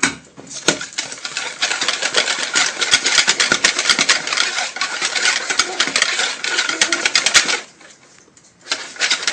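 Wire balloon whisk beating an egg mixture in a ceramic bowl: fast, steady rattling clicks of the metal wires against the bowl. It stops for about a second near the end, then starts again.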